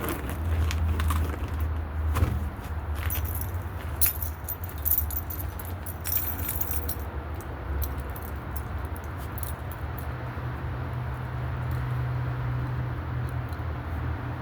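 Light metallic clinks and rattles from work on the front suspension, mostly in the first seven seconds, over a steady low rumble.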